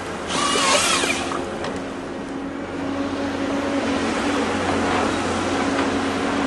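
Diesel engine of a Cat 320 CL excavator-based harvester running steadily as the machine works its Log Max 10000 harvester head. About half a second in there is a brief rushing burst with a short whine in it.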